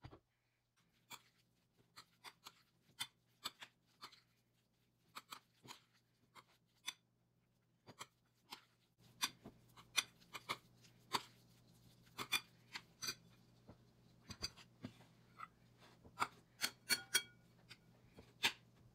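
Metal spoon stirring a mayonnaise salad in a ceramic bowl: faint, irregular clicks and scrapes of the spoon against the bowl, coming more often about halfway through.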